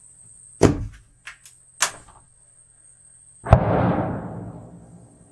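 Handling noise inside a hunting blind: a loud knock, a few lighter clicks, then a sharp click followed by a rustling scrape that fades over about a second and a half.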